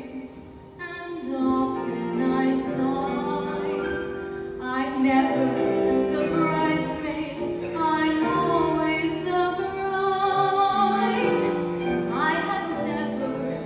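A female soloist singing into a microphone over live band accompaniment with piano, held notes wavering throughout.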